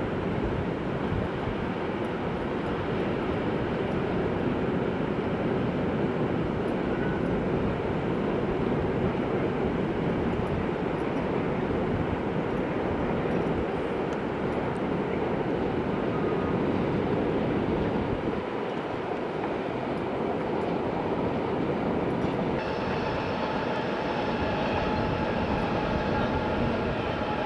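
Electric train running on the line, a steady rolling rumble. About 22 seconds in, a set of steady high-pitched tones joins it.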